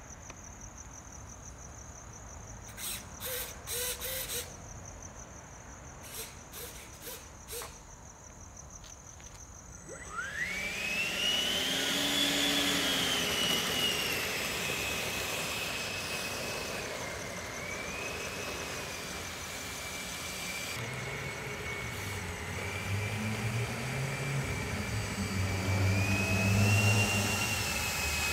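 Electric ducted fan of an E-flite Havoc Xe 80mm EDF jet spooling up with a sharply rising whine about a third of the way in, then running as a steady whine whose pitch wavers with the throttle while the jet taxis. Before it spools up there are only a few short clicks and a faint high steady tone.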